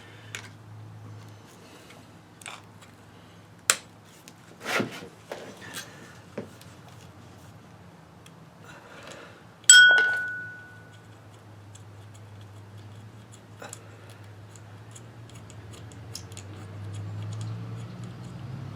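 Clicks and clinks of small metal winch-motor parts being handled and set down, with one sharp metallic ping about ten seconds in that rings for over a second. A low steady hum sits underneath throughout.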